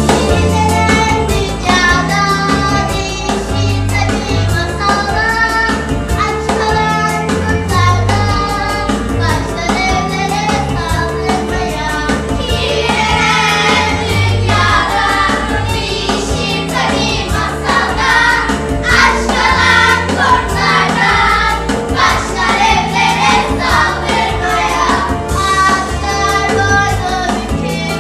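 Music: a group of children singing a song together over an instrumental accompaniment with steady bass notes.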